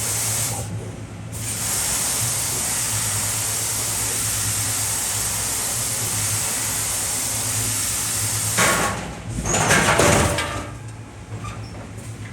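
BLM Adige CNC tube laser at work: a steady hiss over a low hum, then about nine seconds in a burst of knocking and metallic clatter that dies down into scattered ticks.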